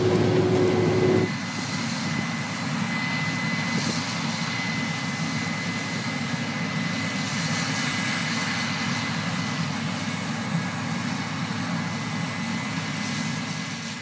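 Harvest machinery running steadily: a tractor and grain-cart auger unloading corn with a steady hum. About a second in, this gives way abruptly to the drone of combines harvesting corn, with a thin high whine over it. The drone fades out near the end.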